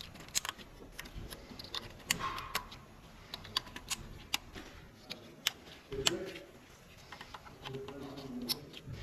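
Irregular sharp clicks and small plastic rattles: engine wiring-harness connectors being handled and pushed back into place.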